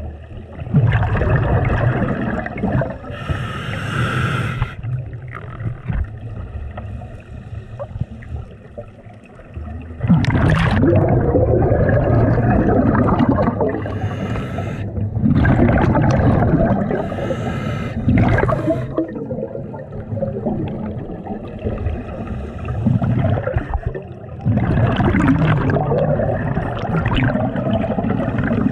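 Scuba regulator breathing underwater: several long exhalations, each a rush of bubbles from the exhaust valve, with quieter stretches between them.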